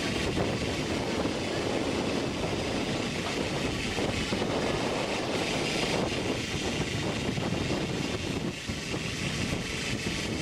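Steady rushing drone aboard a fishing boat at sea: engine noise mixed with wind and water.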